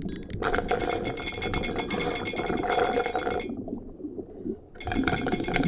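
Gas mask hose dipped into a mug, sucking up the drink with a noisy rattling slurp in two bouts: one of about three seconds, then after a short pause another of about a second and a half.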